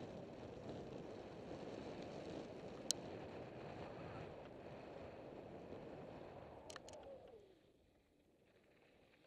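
Mountain bike tyres rolling over a loose dirt-and-gravel trail with wind noise on the bike-mounted camera, and a sharp click from the bike about three seconds in and two more near seven seconds. About seven and a half seconds in the rolling noise drops away to a faint hush.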